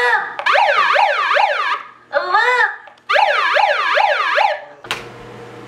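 Handheld megaphone sounding its siren: loud, fast rising-and-falling wails, about three a second, in two runs with one slower rise and fall between them, cut off with a click near the end.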